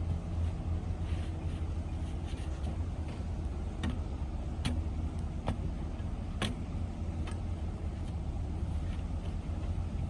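Tamping bar knocking as soil is packed around a fence post: about five sharp strikes a little under a second apart in the middle, over a steady low rumble.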